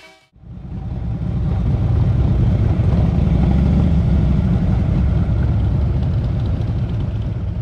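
Deep, steady engine rumble from passing or travelling vehicles. It rises about half a second in and fades slightly near the end.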